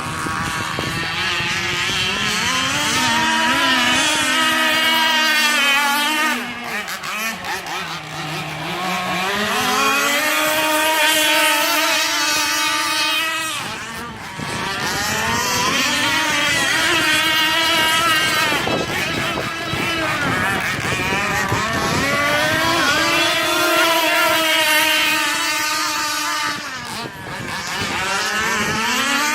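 Radio-controlled catamaran's small gasoline two-stroke engine running at high revs, its high-pitched buzz rising and falling as the throttle changes and the boat passes. The pitch and loudness drop three times, about a third of the way in, halfway and near the end.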